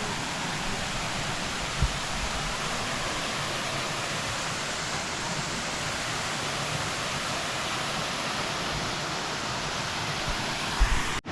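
Steady rush of a waterfall or cascading stream. Two short low bumps, one about two seconds in and one near the end, and the sound breaks off abruptly just before the end.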